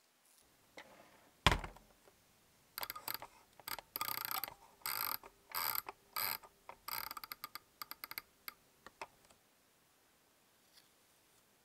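A single thump, then short runs of ratcheting clicks as the plastic temperature dial of a clothes iron is turned. The clicks thin out to a few scattered ones and stop well before the end.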